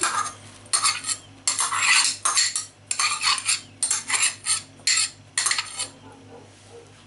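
Slotted metal spoon scraping finely chopped onion out of a small white bowl: a run of about eight short scrapes and clinks, stopping about six seconds in.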